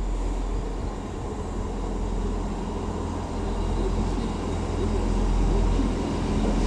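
A train's engine running, a steady low rumble with a hum, growing a little louder toward the end.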